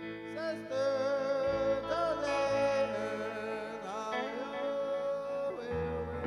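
Live band music: electric guitar and sustained backing chords, with a melody of bending, wavering notes. A low bass note comes in near the end.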